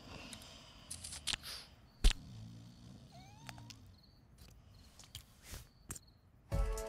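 Cartoon sound effects: short, low, voice-like grunts, a sharp thud about two seconds in, and scattered small clicks, ticks and squeaks.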